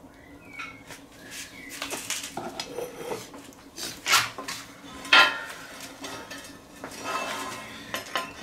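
Metal clanking and scraping as long-handled cast-iron sandwich irons are handled on a steel fire plate, a few separate clanks with the loudest about five seconds in.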